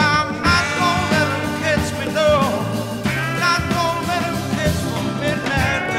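Background music: a song with a steady bass and beat under a wavering lead melody.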